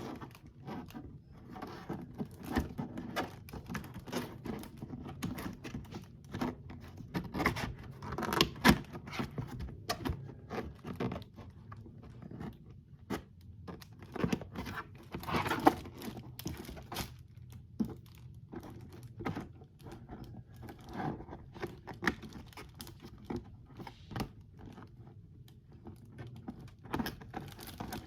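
A plastic box being handled, making irregular clicks, taps and scrapes.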